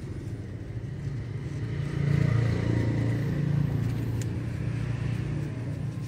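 A motor vehicle's engine passing close by: a low rumble that builds to its loudest about two seconds in, then slowly fades.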